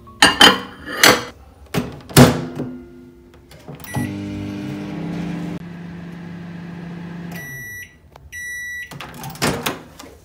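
Countertop microwave oven in use: a glass food container set on the turntable and the door shut with a few sharp clunks, a short beep as it starts, then its steady hum for about four seconds. Two long beeps mark the end of the cycle, and the door clunks open.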